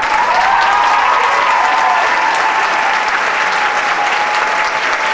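Audience applauding loudly, the clapping swelling up at the start, with one long held tone above it.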